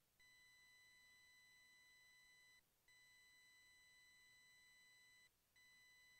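Near silence, with a faint, steady electronic beep tone that cuts out briefly about every two and a half to three seconds.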